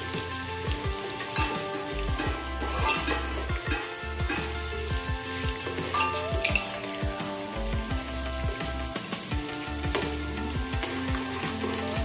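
A steel spoon stirring chopped onions in an aluminium pot, with scraping and repeated clinks against the pot, over background music.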